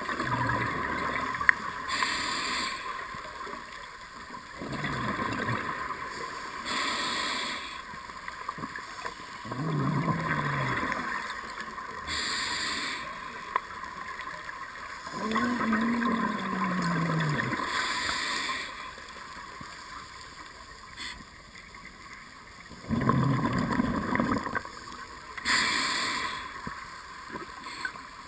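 A scuba diver breathing through a regulator, heard through the camera's underwater housing: a hissing inhale about every five to six seconds, each followed by a bubbling exhale, some with a wavering low tone. The uploader hears this breathing as the diver shivering from cold in 21–23 °C water.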